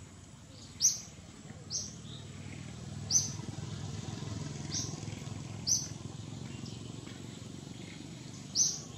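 A bird's short, sharp, high call, repeated about six times at uneven intervals of one to three seconds, over a low steady rumble.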